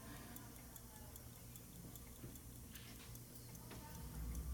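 1898 Elgin gilt 15-jewel pocket watch ticking faintly with a quick, even beat: the serviced movement running.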